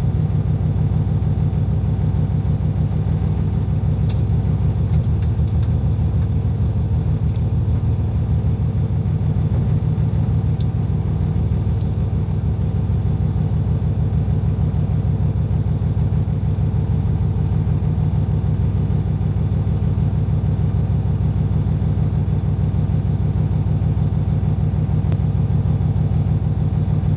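Hino Profia heavy truck's diesel engine running steadily with a low, even drone and no change in pace.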